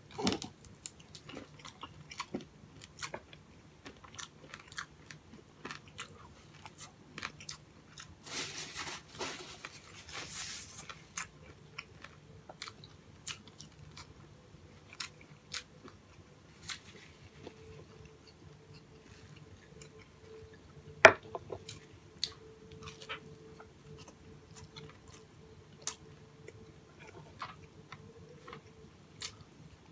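Close-up mouth sounds of a person chewing and crunching crumb-coated fried pork chop, with many small wet clicks. There is a denser crunchy stretch about a third of the way in and one sharp, loud crunch about two-thirds of the way through.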